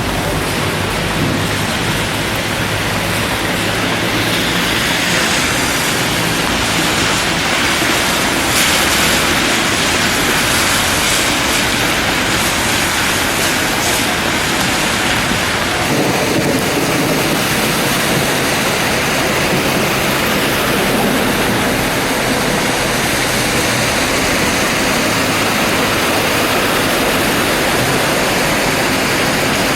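Heavy thunderstorm downpour: a steady, loud rush of rain and running water that shifts in character about halfway through.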